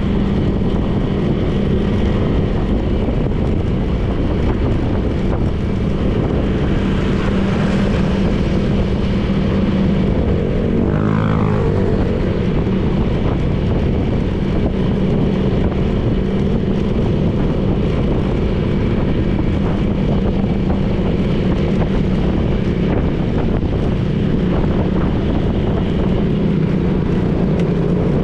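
Honda PCX 160 scooter's single-cylinder engine and belt drive running at a steady cruise, with wind and road noise on the camera's microphone. A short rising-and-falling sound passes about eleven seconds in.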